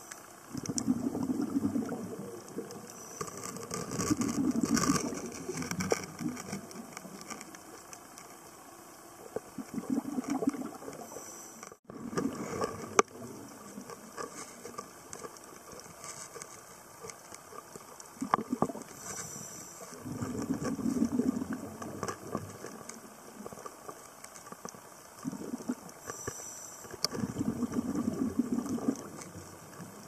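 Scuba diver breathing through a regulator underwater: a short hiss on each inhale, then a rush of exhaled bubbles, repeating every few seconds.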